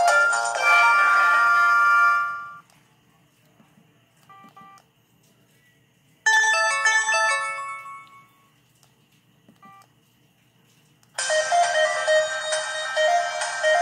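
Samsung ringtones played through a ZTE Z222 phone's speaker, one after another: a melody fades out about two seconds in, a short chime-like melody plays around the middle, and a busier repeating ringtone starts near the end. A couple of brief faint tones sound in the quiet gaps.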